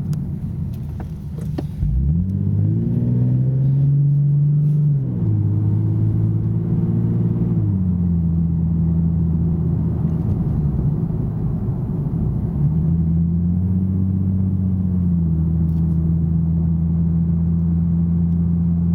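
2009 Nissan 370Z's 3.7-litre V6 through a Fast Intentions exhaust with 18-inch carbon-fibre resonators and non-resonated high-flow cats, heard from inside the cabin with the windows up. The engine note rises as the car pulls away from low revs and drops twice as the seven-speed automatic upshifts. It then settles into a steady low note at light cruise around 2,000 rpm.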